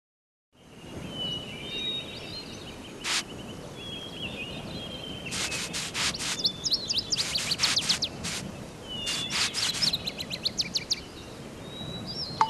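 Birds chirping and calling over a steady outdoor background hiss, with scattered short sharp clicks mixed in. It starts after a brief moment of silence.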